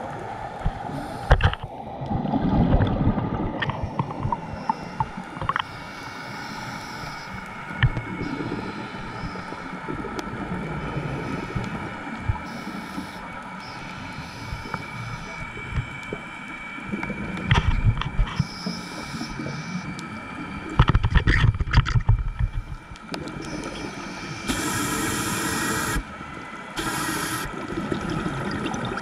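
Scuba diver breathing on an open-circuit regulator underwater: irregular rumbling bursts of exhaled bubbles a few times, and a hissing inhalation near the end.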